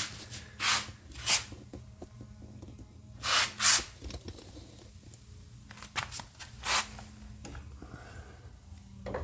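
Steering linkage parts being handled and fitted by hand: a series of short scrapes and knocks over a steady low hum.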